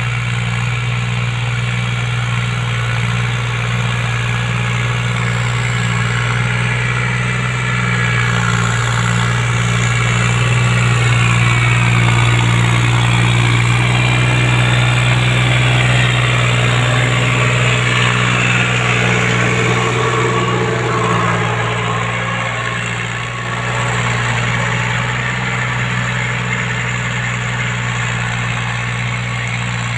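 New Holland TT55 tractor's diesel engine running steadily while it pulls a rotary tiller through the soil, a continuous low drone that grows somewhat louder in the middle as the tractor passes close.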